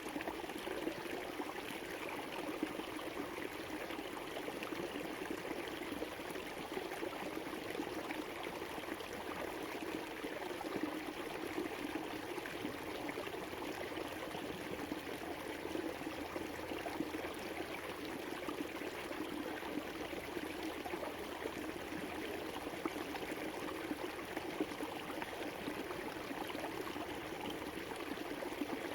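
River water flowing steadily over rocks, a continuous rushing and babbling.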